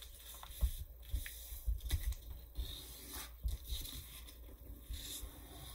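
A sheet of printer paper rustling and sliding on a tabletop as hands fold it and press the crease flat, with a few dull knocks of handling against the table.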